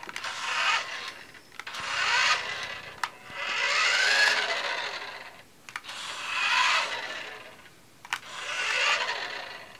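Toy RC car's small electric drive motor whirring in five short runs of a second or two each, the whine rising in pitch as it speeds up in each run. There is a sharp click between some of the runs.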